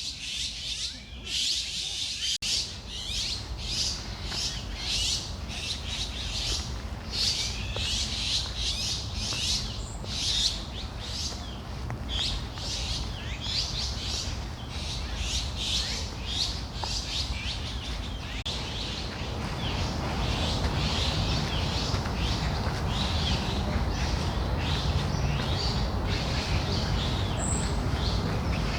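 Many small songbirds chirping rapidly and continuously, in quick overlapping high calls. Beneath them runs a low steady rumble that grows louder about two-thirds of the way through.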